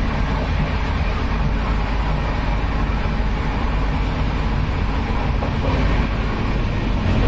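Steady running noise of a moving Humsafar Express passenger coach: a continuous low rumble and rattle of the carriage on the rails, heard inside by the coach doors.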